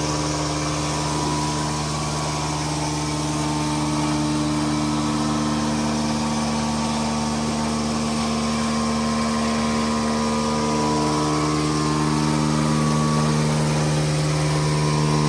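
Milking-machine vacuum pump motor running steadily: a constant mechanical hum of several steady tones that stays unchanged throughout.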